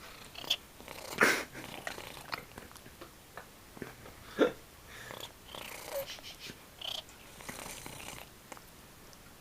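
Domestic cat sneezing several times in short, sudden bursts, the loudest about a second in and about four and a half seconds in, with quieter bursts between.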